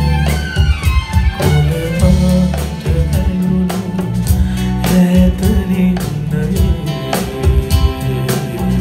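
Live band music: a male voice singing a ballad-style pop song over acoustic guitar, keyboard and a drum kit keeping a steady beat.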